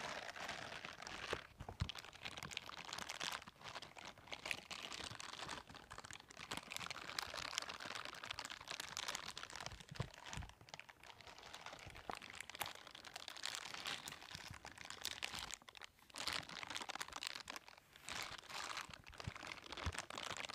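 Silicone bristle scrubbing gloves rubbed and scratched over a microphone grille, close to the mic. The sound is a continuous crinkly, crunchy scratching full of small clicks, easing briefly a few times.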